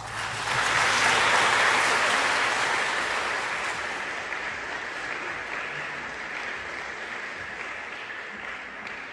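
Audience applauding in a large church hall right after a song ends; the clapping swells in the first second, then slowly dies away.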